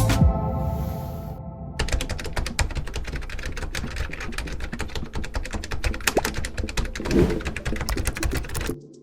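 A fast, continuous run of sharp clicks, many a second, that stops abruptly near the end, following a fading stretch of music.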